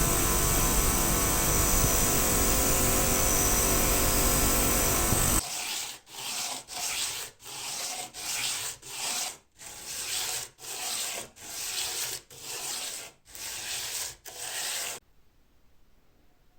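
Sandpaper rubbing on a padlock's steel plate: a loud steady stretch of sanding for about five seconds, then quick back-and-forth strokes, about one and a half a second, until it stops near the end.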